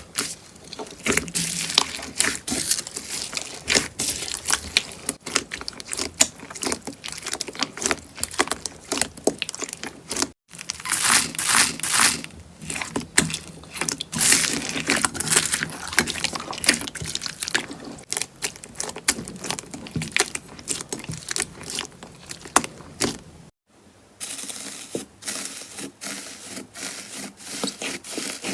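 Slime being squished, poked and stretched, giving a dense run of irregular crackling and popping clicks. There are two brief silent breaks, about ten seconds in and near the end.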